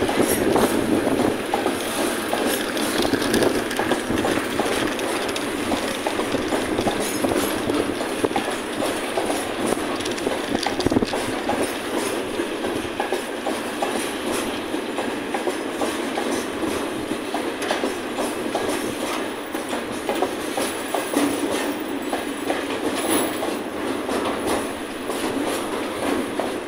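Freight train of tank cars rolling past at steady speed, the wheels knocking again and again over rail joints through a continuous rolling noise.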